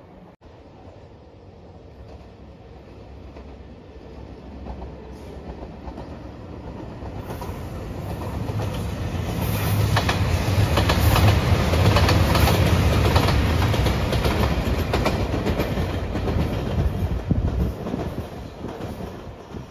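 JR Shikoku 2700 series diesel express train passing: a low engine rumble and wheels clacking over rail joints. It grows louder over several seconds, is loudest around the middle, then fades away near the end.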